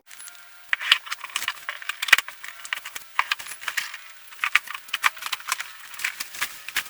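Packaging being opened and handled: a quick, irregular run of crinkling, rustling and small clicks and rattles.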